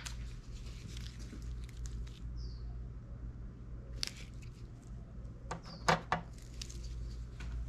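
Gloved hands handling and squeezing plastic JB Weld epoxy tubes: scattered small clicks and rustles, a few faint high squeaks, over a steady low hum.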